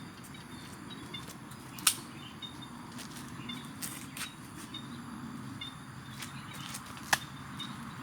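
Outdoor ambience: a steady low rumble with faint, repeated short high chirps, broken by two sharp clicks, one about two seconds in and one near the end.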